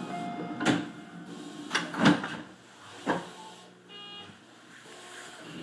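Electric train wheels on the track, heard from the cab of a Tobu 50000 series commuter train: four sharp clacks over the running rumble, as the wheels pass rail joints or points, with faint steady motor tones.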